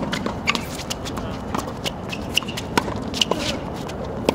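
Tennis ball hit back and forth with rackets on a hard court: a run of sharp pops, with scuffing footsteps and short shoe squeaks between the hits.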